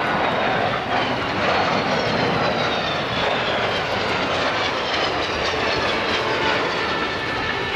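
Kawasaki C-1 transport's twin Pratt & Whitney JT8D turbofan engines on a low pass: a steady jet roar with a high whine that falls in pitch as the aircraft goes by.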